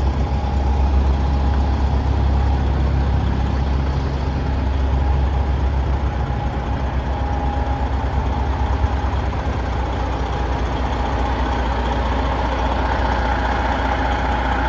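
Detroit Series 60 inline-six diesel in a Freightliner Coronado truck, idling steadily.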